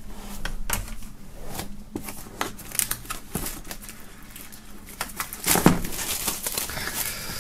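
Clear plastic shrink-wrap film crinkling and crackling in irregular clicks as it is peeled off a cardboard box, with a louder crackle about five and a half seconds in.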